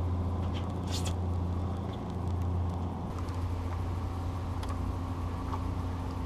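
Steady low drone of a fishing boat's motor running, with a sharp click about a second in.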